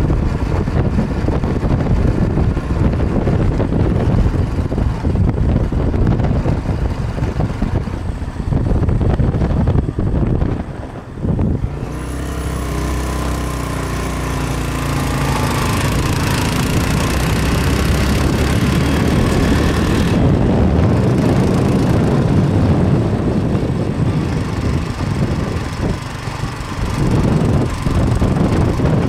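Motorcycle engine running on an uphill ride, with heavy wind buffeting the microphone. For a stretch in the middle the wind eases and the engine's steady note comes through plainly, before the gusty rumble returns.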